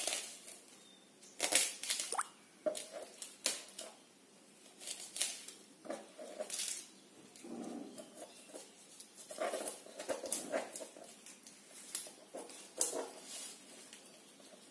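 Vasaka (Malabar nut) leaves being finely chopped with a blade: irregular crisp cuts and taps with short pauses between them.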